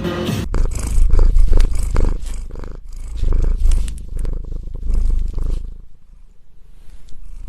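A domestic cat purring loudly. The low, rapid rumble swells and ebbs with each breath and grows quieter near the end.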